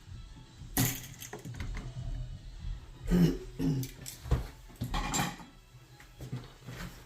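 Hand-handling sounds of electrical work at a switch box: a few irregular knocks and scrapes as wires, wire nuts and a switch are worked by hand, the loudest about three seconds in.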